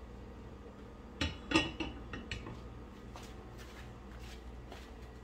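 A water-filled stainless steel pot set down on a gas stove's cast-iron grate: two sharp metallic knocks about a second in, then a few lighter knocks, over a faint steady low hum.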